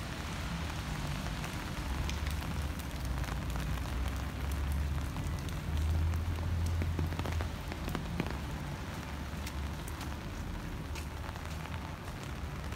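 Steady rain falling, with scattered sharp drop hits over a low rumble.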